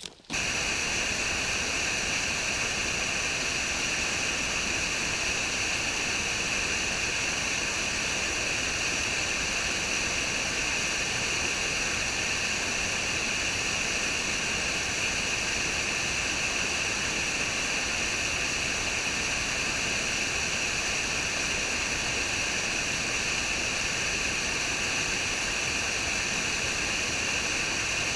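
Waterfall: water rushing in a steady, unbroken roar that cuts in abruptly at the start and does not change.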